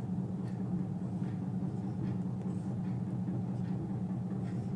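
Marker pen drawing lines on a whiteboard, a few faint short scratches, over a steady low background hum.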